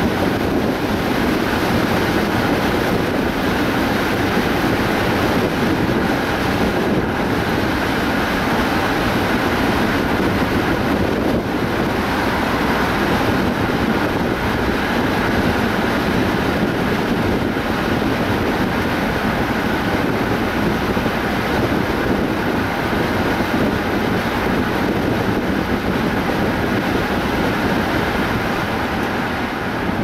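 Steady road noise of a car driving: tyre and wind noise with the engine in the mix, unbroken at a constant pace and easing slightly near the end.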